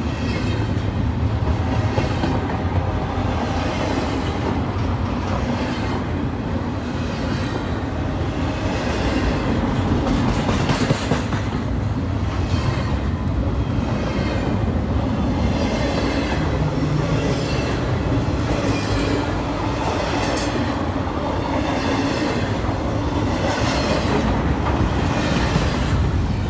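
Double-stack intermodal freight train of container well cars rolling past close by: a steady rumble of steel wheels on rail with repeated clickety-clack as the trucks pass. A brief high wheel squeal comes about three-quarters of the way through.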